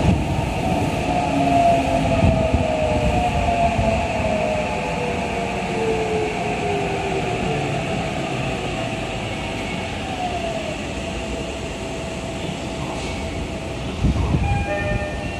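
Eidan 8000 series subway car running through the tunnel, heard from inside the car. Its traction motors whine in several tones that fall steadily in pitch as the train slows, and the running noise eases off, with a burst of low rumble near the end.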